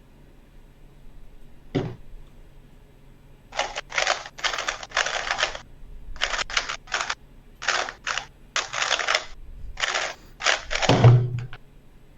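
A speedcube (Rubik's cube) being turned fast in short bursts of rapid plastic clicking, with pauses between the bursts. There is a single sharp knock about two seconds in, and a heavier thump near the end.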